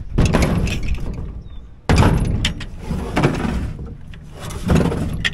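Heavy buckets of hydraulic oil set down on a wooden pickup bed, giving several dull thunks: a sharp one about two seconds in and more near the middle and end. Wind noise rushes on the microphone throughout.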